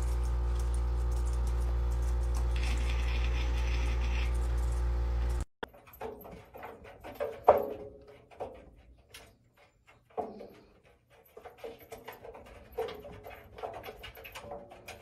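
A steady low hum for about five seconds, then a cat scrambling inside the steel drum of a front-loading washing machine: irregular thumps, scratches and patter of paws against the drum, with one loud thump about two seconds after the hum stops.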